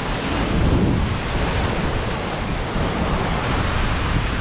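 Ocean surf washing and breaking against rocks, a steady rush, with wind buffeting the microphone in low gusts.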